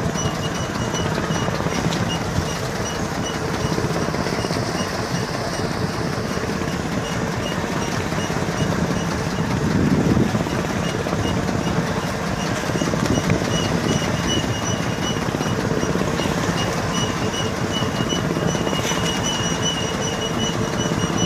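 Small fishing boat's engine running steadily, with a faint, fast, regular ticking high above the rumble.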